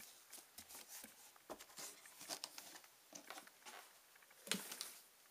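Faint scratching and scuffling of a kitten's claws on a cardboard box and carpet as it scrambles about: a scattered series of short scrapes and taps, loudest about four and a half seconds in.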